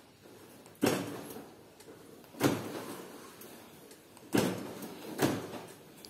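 Nissan Sunny N16's central door-lock actuators clunking as the remote key fob locks and unlocks the car: four sharp clunks, the last two close together, the repaired central locking at work.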